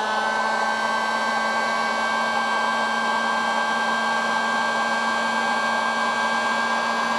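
Handheld electric heat gun running steadily, its fan blowing with a constant hum and whine, aimed at a lithium battery's temperature sensor to heat it.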